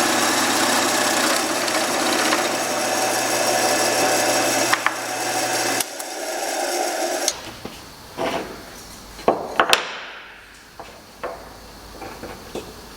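An electric power tool runs on wood with a steady motor hum and a loud, noisy rush, then is switched off about six seconds in and winds down. Then come several light, sharp wooden knocks and clicks as the workpiece is handled.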